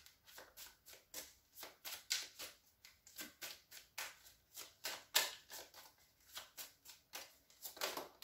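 A deck of tarot cards being shuffled by hand, with about three or four light card snaps a second in an uneven run.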